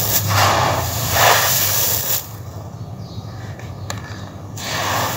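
Loose gritty sand falling from cupped hands onto a sand-covered wooden slab: a grainy hiss that comes in surges. It drops to quieter rustling about two seconds in and rises again near the end.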